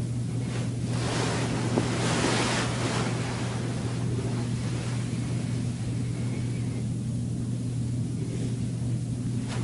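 Steady low electrical hum under a hiss of room noise on the microphone. The hiss swells into a louder rush for about a second, roughly two seconds in.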